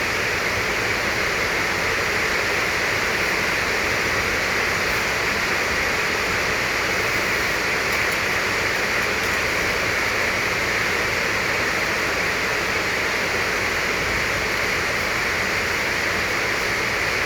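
Steady, even hiss with no distinct clicks or tones: continuous background noise.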